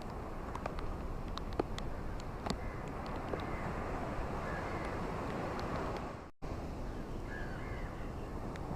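Ocean surf washing on a beach, a steady rushing noise with small crackling clicks, and a few faint bird calls. The sound cuts out for an instant about six seconds in.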